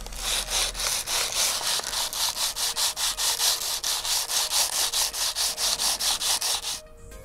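The edge of a thin clear plastic roofing-sheet strip being rubbed quickly back and forth on 320-grit sandpaper wrapped around a block, about five rasping strokes a second, to true the strip's edges. The strokes stop shortly before the end.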